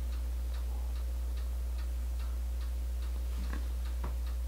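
A low, steady hum with faint, evenly spaced soft ticks over it, about two to three a second.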